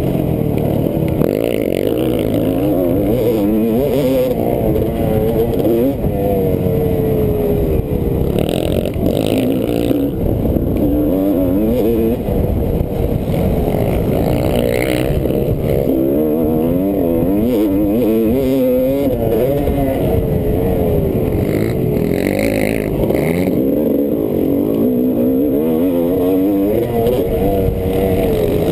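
Motocross bike engine at race pace, heard from on the bike, its revs rising and falling over and over as the rider works the throttle and gears around the track.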